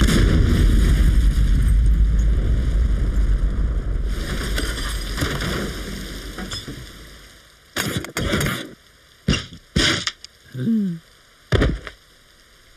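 Cartoon gas-explosion sound effect: a sudden loud blast that rumbles and fades away over about seven seconds. It is followed by about six short crashes and thuds, one of them with a short falling tone.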